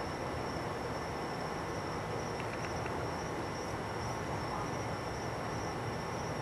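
Steady background noise: a low rumble and hiss with a constant high-pitched whine, and a few very faint ticks about two and a half seconds in.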